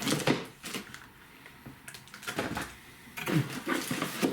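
Toy box packaging being handled: a string of clicks, taps and rustles, busiest at the start and again near the end.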